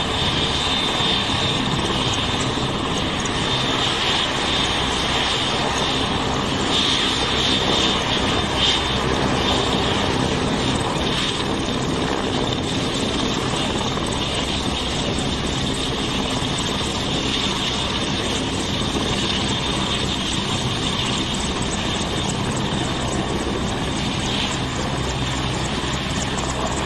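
AgustaWestland AW101 Merlin helicopter running on the ground with its rotors turning: a steady high turbine whine over continuous engine and rotor noise.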